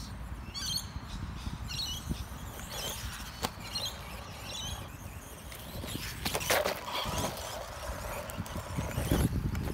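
Brushed-motor 1/16 RC stadium truck (BLACKZON Slayer) driving over loose dirt, with scattered clicks and rustles from the tyres and chassis over a low rumble. Birds chirp now and then.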